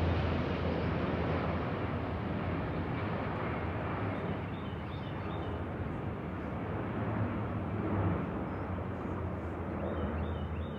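Four turboprop engines of a C-130 Hercules droning as the aircraft passes and moves away, a low steady hum under a broad rushing noise that slowly fades. Birds chirp faintly a few times.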